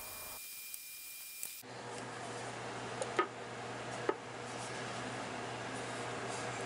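Quiet workshop room tone with a steady low hum. Two short light taps come about three and four seconds in as a small cedar jewelry box is handled.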